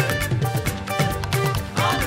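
Live gospel praise band playing an upbeat passage with a steady drum beat, bass and keyboard between sung lines; a singing voice comes back in near the end.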